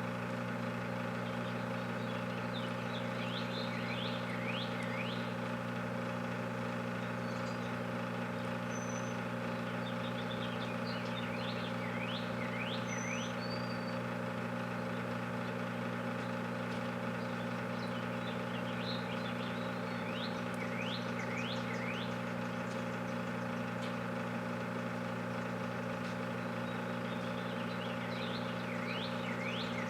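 Microwave oven running with a steady electrical hum. Short runs of high, falling chirps recur about every eight or nine seconds.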